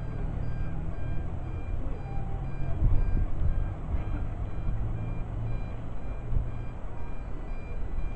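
Boat's engine running with a steady low drone, and a faint high electronic beep repeating at a steady pace.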